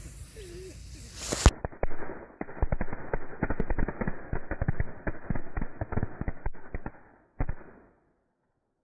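A string of firecrackers packed into a watermelon going off: one loud bang about a second and a half in, then a rapid run of crackling pops for about six seconds, a last pop, and then they stop.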